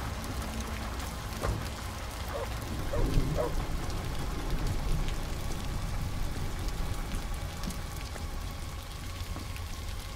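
Heavy rain pouring onto a road, with a steady low rumble underneath and a few faint knocks about three seconds in.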